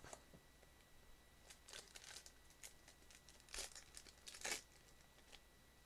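Foil wrapper of a Pokémon card booster pack crinkling as the pack is drawn from the box and torn open: a few short rustles and rips, the loudest about three and a half seconds in and again near four and a half seconds.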